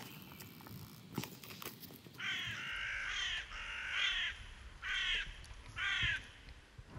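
A crow cawing five times in a row, each harsh caw about half a second long, with a few faint crackles from a small twig fire before the calls start.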